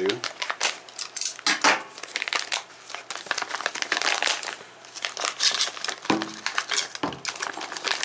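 Plastic packaging crinkling and crackling in quick, irregular bursts as a screwdriver set is worked open by hand.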